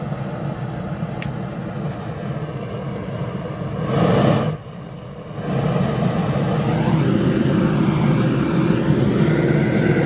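Large propane furnace burner running with a steady rushing noise. About four seconds in it surges loudly, dips briefly, then settles into a louder, lower, steady roar as it fires into the furnace.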